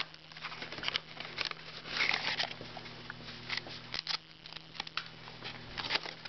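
Hands opening and handling a box of 2011 Playoff Absolute football cards: irregular rustling, scratching and light clicks of cardboard and packaging, with a louder scrape about two seconds in. A faint steady low hum sits underneath.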